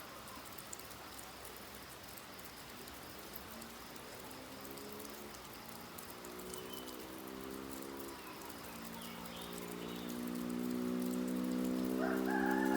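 Steady rain falling. A low hum of several steady tones swells in over the second half and grows louder, with a few faint chirps above it.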